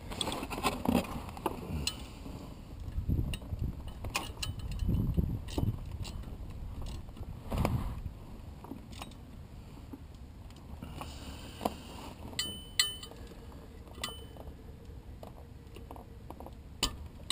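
A 100-tooth ratcheting wrench clicking in short runs as a bracket is bolted on, with irregular metallic knocks and clinks of tools and parts, and a few brief ringing clinks near the end.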